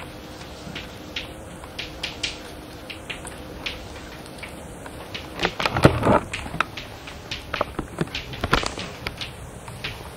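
Chalk tapping and scratching on a blackboard in irregular short strokes, busiest and loudest around the middle, over the steady hiss of an old cassette recording.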